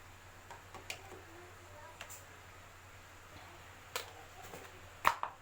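A few light clicks and knocks of kitchen items being handled while a cup of tea is prepared, over a faint steady hum; the sharpest knocks come near the end.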